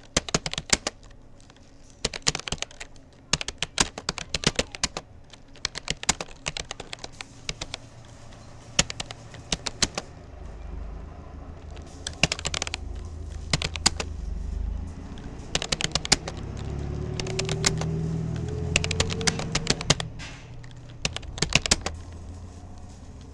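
Keystrokes on a Rapoo computer keyboard, typed in quick bursts with short pauses between words and phrases. A low rumble with a faint rising hum swells in the middle, under the typing.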